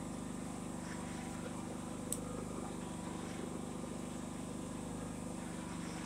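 Pulsar G450RN inverter generator engine running steadily, heard from about 7 to 8 feet away, where a sound meter reads 78 to 79 dB. One light click about two seconds in.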